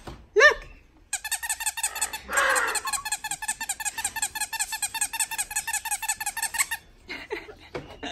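A small rubber squeaky toy squeezed over and over, a fast even run of squeaks at about seven a second for roughly six seconds, then it stops suddenly. Just before the squeaking starts there is one brief, loud rising vocal sound.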